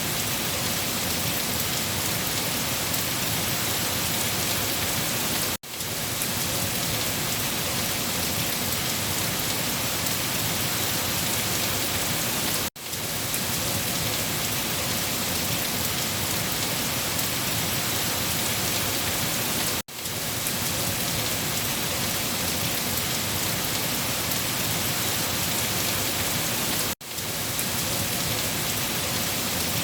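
Steady rain falling in a dense, even hiss. It cuts out for a split second about every seven seconds, four times.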